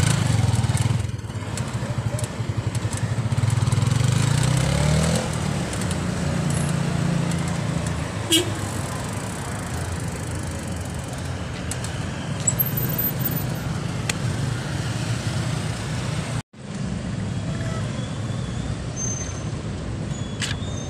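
City traffic heard from a moving bicycle. A motorcycle engine runs close alongside and rises in pitch a few seconds in as it speeds up. A steady rumble of traffic and road noise follows.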